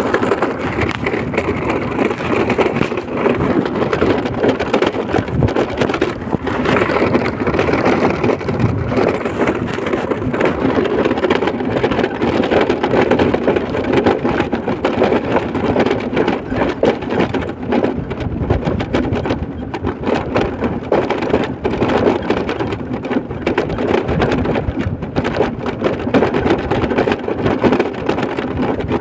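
Steady rushing noise of a vehicle on the move: tyres on the road and wind on the microphone, loud and unbroken, with a rough crackle over it.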